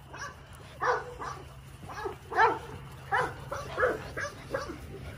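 American Bully puppies play-barking: a quick run of short, high yips and barks, two to three a second, starting about a second in.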